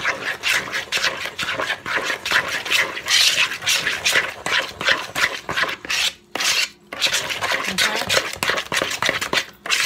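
Spoon stirring thick cornbread batter in a mixing bowl: quick repeated wet scraping strokes against the bowl, pausing briefly a couple of times past the middle.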